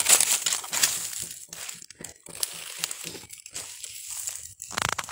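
Dry coconut husk and king-coconut shell pieces crackling and rustling as a stick prods and pushes through them, in an irregular run of short crunches.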